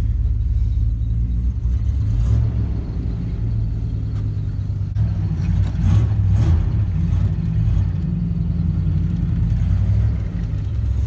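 Vehicle engine and exhaust rumbling, heard from inside the cab while driving slowly, briefly louder about six seconds in.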